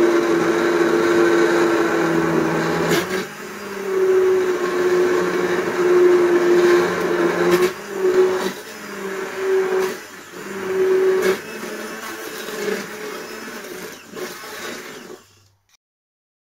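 Handheld immersion blender motor running in a pot of soup, puréeing it smooth. Steady for about three seconds, then it rises and falls as it is worked through the soup, with a few sharp knocks, and stops about fifteen seconds in.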